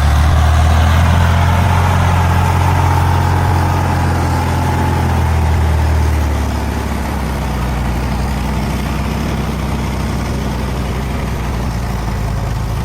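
Logging truck's heavy diesel engine running with a deep, steady drone, which eases off slightly about six seconds in.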